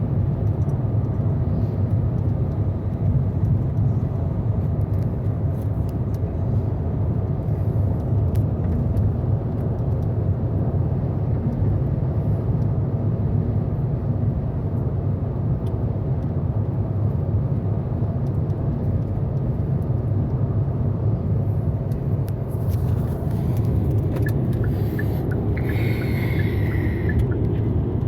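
Steady low road rumble of a car driving on a highway, heard from inside the cabin.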